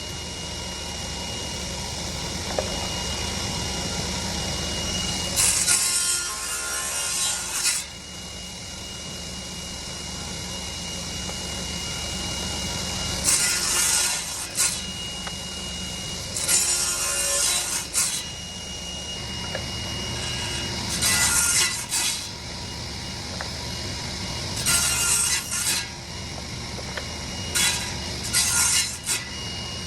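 Table saw running steadily with a thin high whine, cutting through oak bourbon barrel stave pieces on a cross-cut sled. About six cuts, each a loud rasping burst of a second or two, with the saw spinning freely in between.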